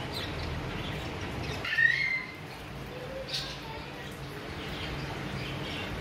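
A parakeet gives a short, loud squawk about two seconds in, then a brief high chirp about a second later, over a steady low hum.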